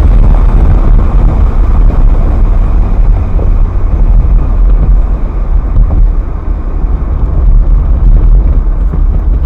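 Ferrari F430's V8 engine running as the car drives along the road, a steady heavy low rumble of engine and road noise.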